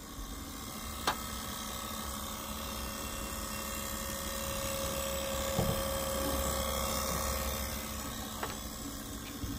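Toyota Prius ABS actuator pressure pump running continuously with a steady whir. It keeps running because the brake accumulator cannot build or hold pressure: the accumulator has failed.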